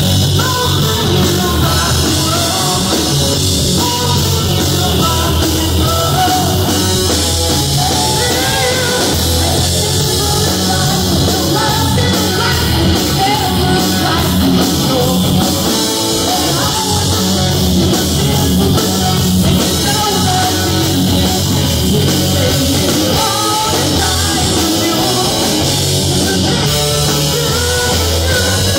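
Live rock band playing loudly: electric guitars and a drum kit, with a male lead vocal over them.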